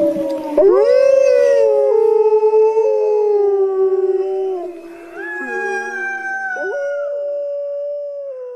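Several wolves howling together in a chorus: long overlapping howls at different pitches, each rising, holding, then sliding down. A new howl swoops up about half a second in, another, higher one joins about halfway, and the chorus trails off downward near the end.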